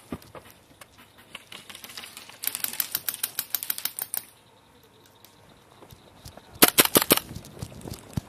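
Airsoft guns firing on full auto in two bursts of rapid sharp clicks, about ten shots a second. A longer, quieter burst comes a couple of seconds in, and a short, louder burst of about six shots comes near the end.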